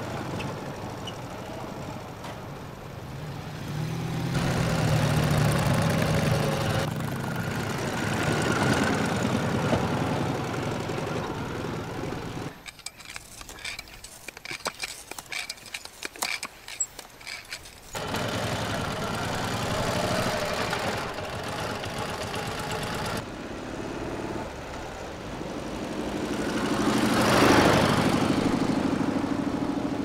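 Dnepr sidecar motorcycle's flat-twin engine running as the bike rides along, in several cut-together stretches. In the middle come a few seconds of a hand tyre pump worked in quick strokes. Near the end the engine swells loudest as the bike passes close, then fades.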